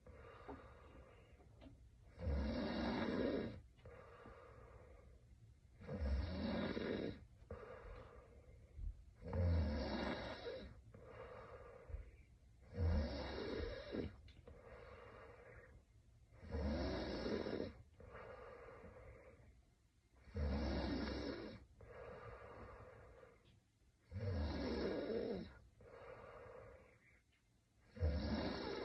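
A sleeping woman snoring in a steady rhythm: a loud snore every three to four seconds, about eight in all, each followed by a softer breath.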